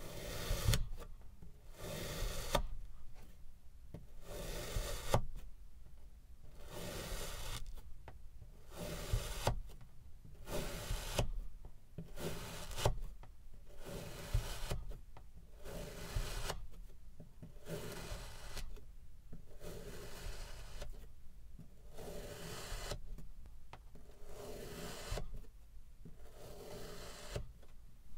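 A wavy crinkle-cut stainless steel knife slicing down through a block of kinetic sand, giving a crunchy, gritty scrape with each cut. The slices come one after another, about one a second, with short pauses between them.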